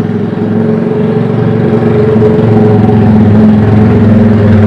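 Motorcycle engine running at a steady pace, growing louder over the first couple of seconds and then holding.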